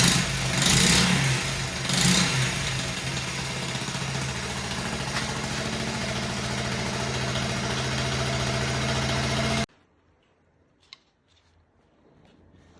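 1978 Honda Gorilla's 50cc four-stroke single-cylinder engine idling steadily, with two short throttle blips early on. The engine sound stops abruptly near the end, followed by a single faint click.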